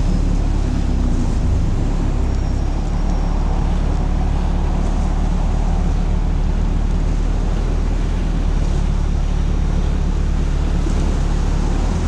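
Sherp amphibious ATV's diesel engine running at a steady, unchanging speed, heard from inside the cab as a constant low drone.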